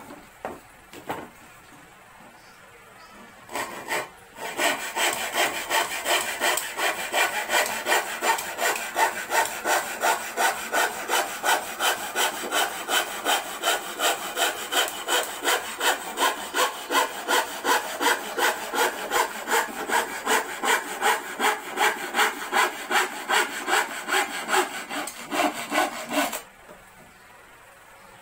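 Hand saw cutting through a plywood board with quick, even back-and-forth strokes, about two and a half a second, for some twenty seconds, then stopping as the piece is cut through. A few light knocks come before the sawing starts.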